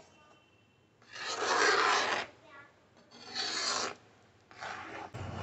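A wooden spoon scraping across the bottom of an iron kadai while stirring thick, boiling beetroot paste with jaggery: three long rasping strokes, with a short click near the end.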